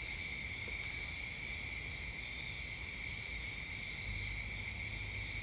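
Steady high-pitched chirring of crickets, with a faint low hum underneath.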